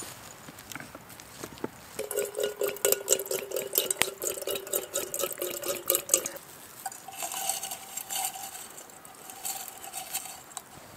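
Water poured from a leather bottle into a metal camp kettle, splashing and ringing in the kettle for about four seconds. After it stops comes quieter metal clinking as the kettle is handled.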